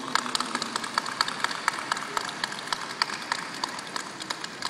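Audience applauding: many separate hand claps, fading toward the end.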